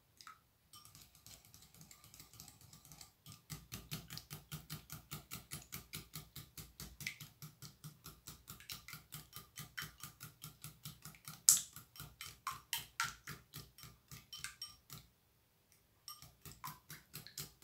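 Wire balloon whisk beating eggs and milk in a small ceramic bowl: a fast, even clicking of the wires against the bowl, about five strokes a second, softer for the first few seconds, stopping for about a second near the end and then starting again.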